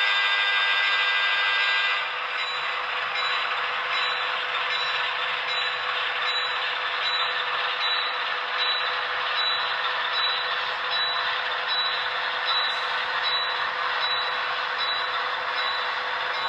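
Sound from an HO scale ALCO diesel locomotive model as it rolls slowly. A steady chord of several tones holds for about the first two seconds and then stops. After that comes a hissing diesel-like running sound with a regular beat about every 0.8 seconds.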